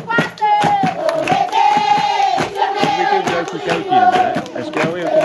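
A group of children singing together, with long held notes over rhythmic hand clapping.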